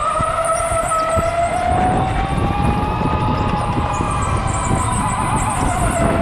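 Electric go-kart's motor whining under way, its pitch rising a little over the first few seconds and easing back down as speed changes, over a low rumble from the kart.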